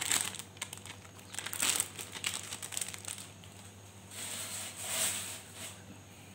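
Plastic noodle packet crinkling, with crackly handling sounds mostly in the first couple of seconds, over the bubbling of a wok of soup at the boil.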